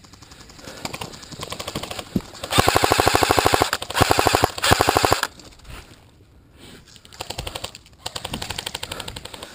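AK-pattern airsoft rifle firing full-auto bursts of suppression fire: a rapid, even rattle of shots for about two and a half seconds, broken once briefly, starting a couple of seconds in. Fainter rapid firing can be heard before and after it.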